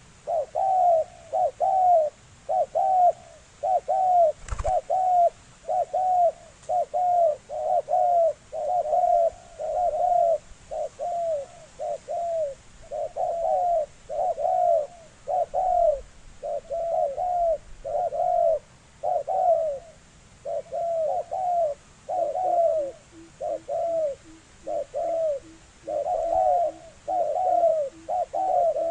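Spotted dove cooing in the rapid 'thổ sấm' style, a quick, unbroken run of short coos about two a second, the call bird keepers play to lure wild doves.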